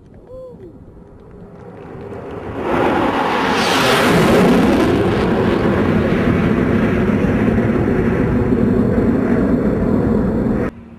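An aircraft flying low past the crowd. The engine noise builds to a loud, steady roar with a sweep in pitch about four seconds in, then cuts off suddenly near the end.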